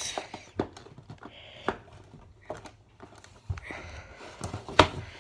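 Fingers tapping and rubbing on a cardboard action-figure box: a few scattered sharp clicks with short stretches of soft scraping between them, the loudest click near the end.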